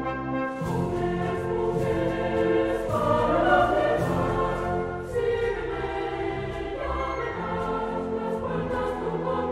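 Intro music: a choir singing sustained chords over instrumental backing, the harmony shifting about every two seconds.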